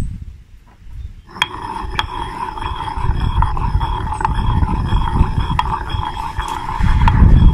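Stone pestle swirled round a granite mortar through a thick oily sauce: continuous stone-on-stone scraping with a steady ringing tone and occasional sharp clinks, starting about a second in.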